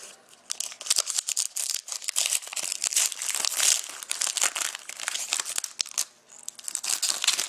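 Foil and clear-plastic wrapper of a hockey trading-card pack being torn open and crinkled by hand: a dense crackling rustle with many small snaps and a brief lull about six seconds in.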